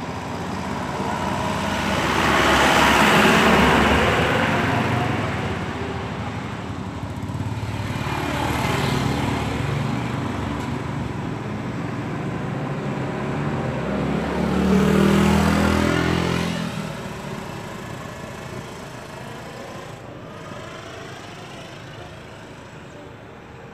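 Road vehicles passing close by one after another. Three pass-bys swell and fade, peaking about 3, 9 and 15 seconds in, and the last has an engine note falling in pitch as it goes by. Afterwards the sound settles to a lower steady traffic background.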